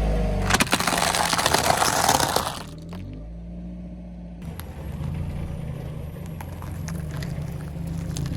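A dense burst of crunching and cracking lasting about two seconds, then a low steady hum with scattered small clicks.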